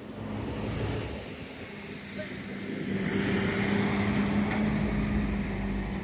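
Steady low hum of a motor vehicle's engine, getting louder about halfway through.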